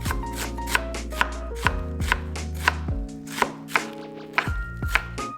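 Background music with held bass chords changing every couple of seconds, with sharp knocks about twice a second over it.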